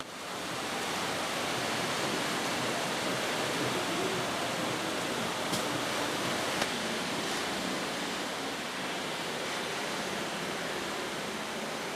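Sea surf washing in a steady, even rush, with two faint clicks about midway.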